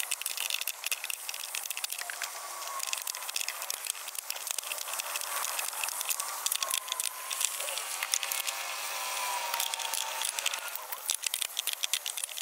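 Box-end wrench working a bolt beside a car battery, giving metallic clicks and rattles as the handle is swung back and forth. The clicks come in a fast run near the end.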